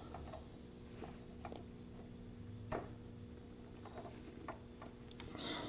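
Faint, scattered clicks and ticks of tongue-and-groove pliers working the end fitting of a stainless steel brake line as it is twisted by hand, the sharpest about two and a half seconds in, over a low steady hum.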